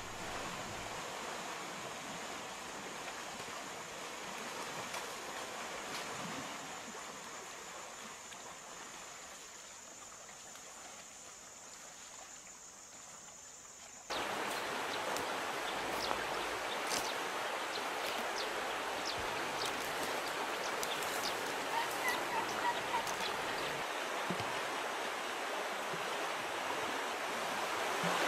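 River water running and splashing around wild Asian elephants bathing in the shallows, with an elephant spraying water from its trunk. About halfway through the sound changes abruptly to a louder rush with many sharp splashes; before that a faint steady high tone sits over the water.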